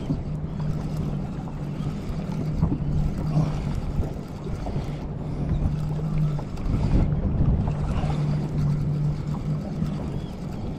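Small boat's motor humming steadily, with a few short breaks, under wind and water noise.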